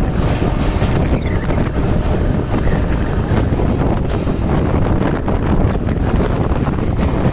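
Local train running along the track: a loud, steady rumble of the wheels on the rails with scattered faint clicks, and wind buffeting the microphone.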